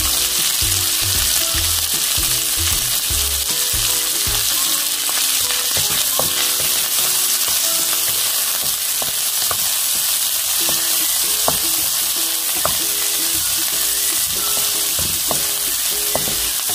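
Diced pork sizzling in hot oil in a frying pan with onion, garlic and ginger, stirred with a wooden spatula. A steady hiss, with a few sharp knocks of the spatula against the pan from about six seconds in.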